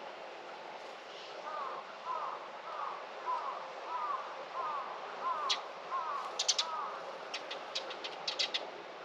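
A bird calling in a series of about ten short, evenly repeated notes, roughly two a second. In the second half, quick sharp high chips, perhaps from a second bird, join over a steady background hiss.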